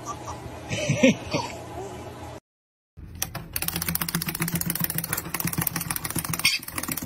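A few short squeaky sounds over light rubbing, a break, then a rapid, steady clicking for about four seconds, the clockwork of a wind-up toy chick running.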